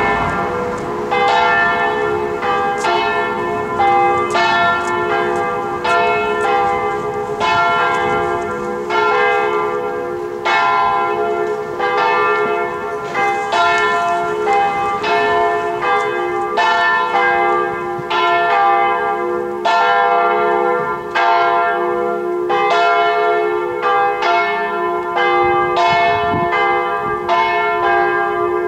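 Several church bells pealing: a steady run of strokes, about one or two a second, each bell ringing on under the next so that the tones overlap into continuous ringing.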